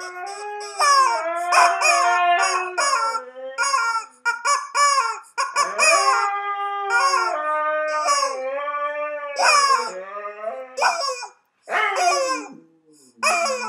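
A yellow rubber chicken toy squeezed again and again, giving many short, shrill squawks, while a husky howls along in long, wavering notes.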